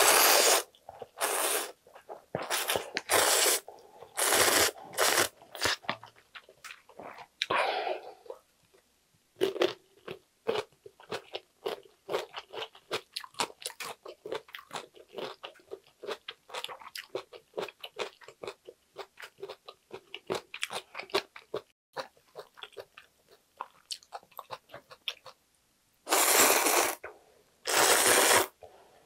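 A person slurping instant ramen noodles in several long, loud pulls, then chewing them wetly with many small clicks, and two more long slurps from a ladle near the end.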